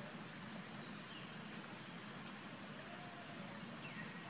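Steady low outdoor background hum with a few faint, brief high chirps, including a short falling whistle near the end.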